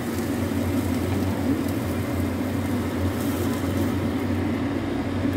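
Steady low rumbling hum at a stove where a pot of water is on the boil.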